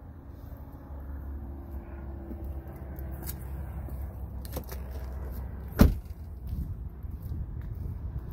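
A Ford F-150 pickup's door being shut: one loud thud about six seconds in, over a steady low rumble.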